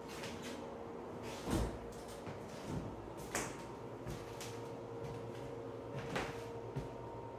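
A few short knocks and clicks at irregular times, the loudest a low thump about a second and a half in, over a steady faint electrical hum.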